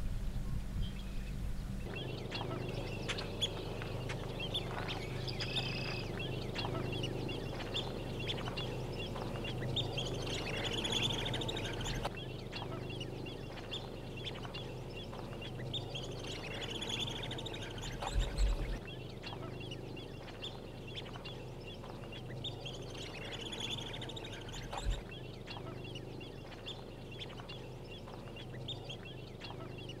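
A flock of wetland birds calling, many short overlapping chirps and calls, over a steady fast high-pitched trill. The mix of calls changes abruptly several times.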